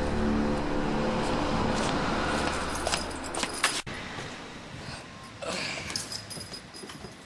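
Keys jangling and sharp clicks as a car's driver door is unlatched and swung open, with a tail of background music fading out at the start.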